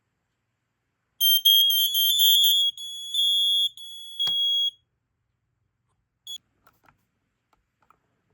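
Smoke alarm horn giving its dying sound as it loses power: a high, uneven, stuttering tone for about three and a half seconds, broken by a click near the end. A short faint chirp follows a couple of seconds later.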